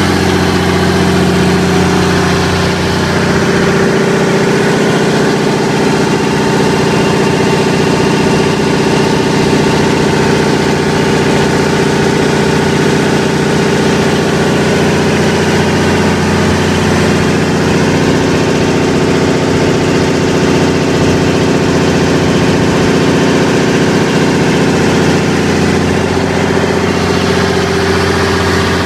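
1991 Onan 350DFCC diesel generator set running steadily, its engine holding one constant speed with no change in pitch.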